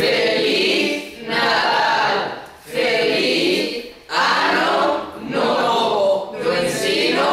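A mixed group of teenagers singing together without accompaniment, in phrases of about a second with short breaks between them.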